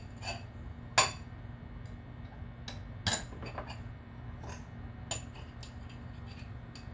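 A metal spoon clinking and tapping against a small bowl while working a breadcrumb mixture: scattered light clinks, with two louder ones about one second and three seconds in.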